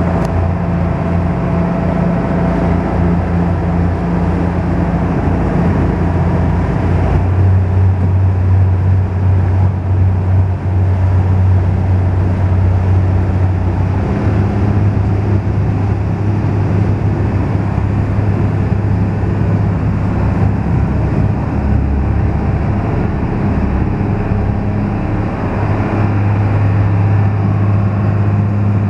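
Small harbour ferry's engine running steadily under way, a loud low drone with the wash of its wake, its pitch shifting slightly a couple of times.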